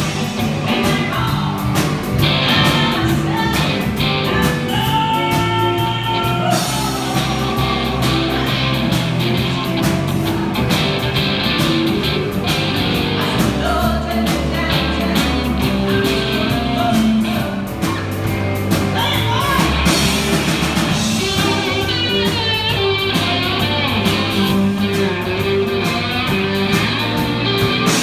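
Live rock band playing a blues-rock number: electric guitars, bass and drums, with a vocalist singing over them.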